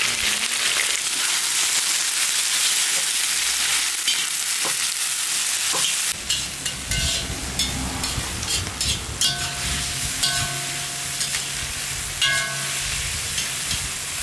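Chopped onions sizzling in hot oil in a kazan, with a steady hiss. From about six seconds in, a spoon scrapes and clinks as they are stirred.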